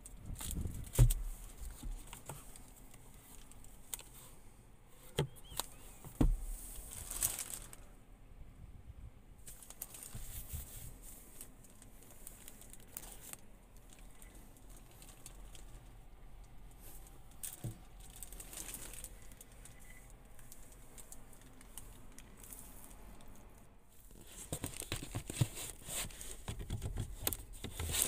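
Protective plastic wrap on a new car's sun visor and seats crinkling and rustling as it is handled, with a few sharp clicks and knocks, the loudest about a second in.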